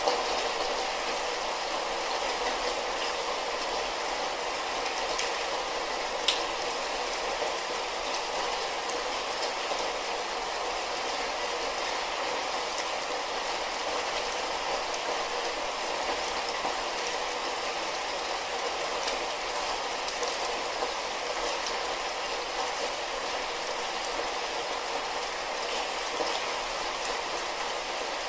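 Light rain falling steadily, an even hiss of drops with an occasional sharper drip, one louder at about six seconds in.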